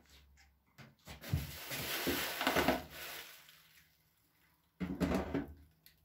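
An electric kettle and its parts being handled and set down on a table: a few knocks and clunks, then a couple of seconds of rubbing and rustling handling noise, and more clunks near the end.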